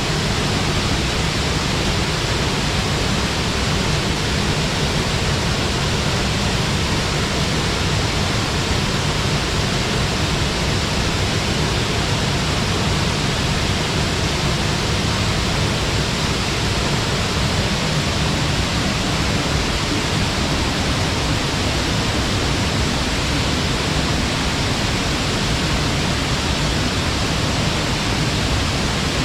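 Waterfall pouring steadily into its pool, a loud even rush of falling water.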